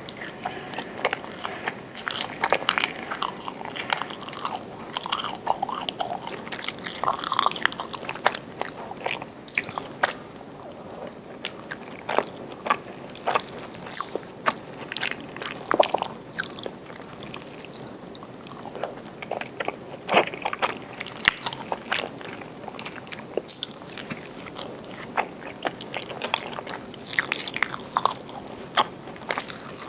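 Close-up eating sounds: a person chewing, smacking and biting food, with many quick, irregular wet clicks and crunches.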